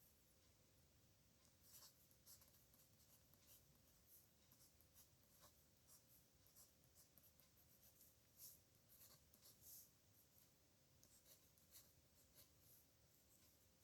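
Faint pen nib scratching on paper in short, irregular strokes as characters are written by hand.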